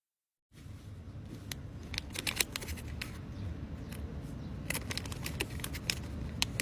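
Small plastic items and packaging being handled: irregular sharp clicks and crinkles over a steady low hum, starting after half a second of silence.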